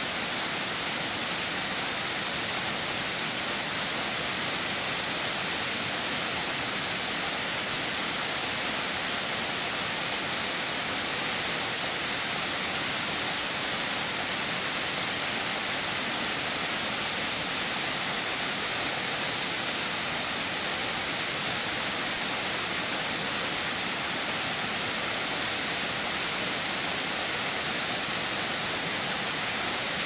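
A 70-metre waterfall falling down a rock face: a steady, unbroken rush of water, heavy in the hiss, with no change in level throughout.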